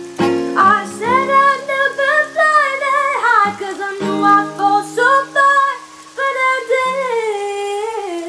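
Song playing: a voice sings long, sliding held notes over guitar accompaniment.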